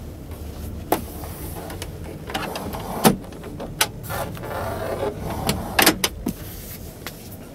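Sharp clicks and knocks of a truck cab's plastic storage compartment being opened and handled, with a scraping rustle in the middle, over a steady low hum.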